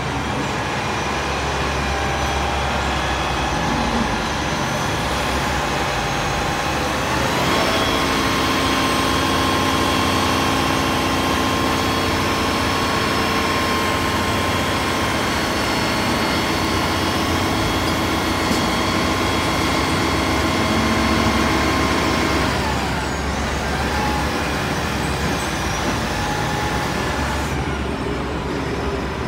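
Mobile crane truck's diesel engine running, revving up about seven seconds in, holding at higher speed with a steady whine for about fifteen seconds, then dropping back to idle.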